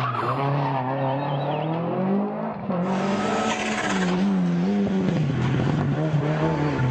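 Rally car engine revving hard, its pitch rising and dropping again and again, with tyre noise on a loose stage road.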